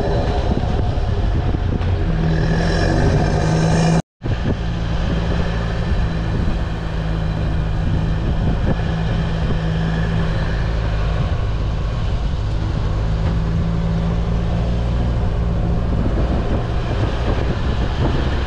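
A 4x4 driving along a track: a steady engine drone with road and rattle noise. The sound drops out completely for an instant about four seconds in.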